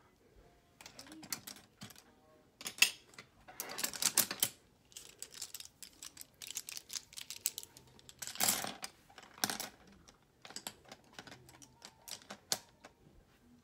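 Irregular clicks, taps and rustles of small objects being handled close to the microphone, in scattered bursts that are loudest about three, four and eight and a half seconds in.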